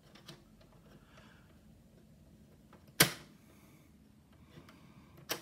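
Piano-key transport buttons of a 1980s Sharp GF-4343 boombox's cassette deck being pressed to play back a test recording: a few light clicks, then a sharp, loud mechanical clunk about three seconds in and another near the end.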